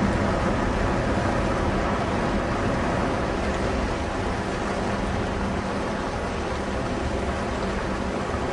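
Diesel engines of the passenger motor ship Koli III running as it pulls away from the quay close by: a steady low drone with a constant hum, easing slightly about halfway through.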